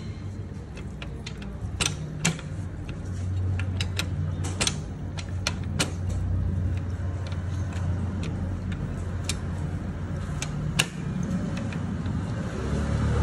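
Scattered sharp metal clicks and taps of hand tools working on an opened motorcycle clutch assembly, over a steady low engine hum from another running vehicle. The hum grows louder near the end.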